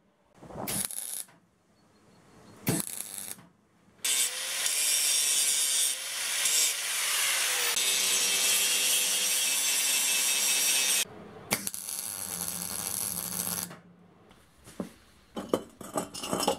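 Two short crackling bursts of MIG welding tacking a steel caster bracket, then an angle grinder grinding down the weld for about seven seconds, its whine wavering under load. It then runs more quietly for a few seconds. Near the end come light metal clinks and knocks as the caster wheels are handled.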